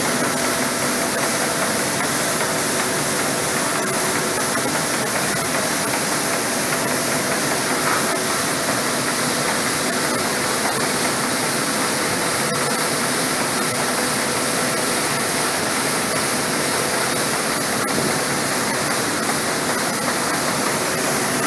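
Grain dryer and elevator plant running: a loud, steady machine roar with faint steady hum tones through it.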